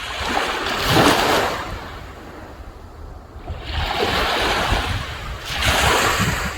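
Sea waves breaking and washing up the shore in repeated swells, loudest about a second in and again near the end. Wind buffets the microphone with a low rumble throughout.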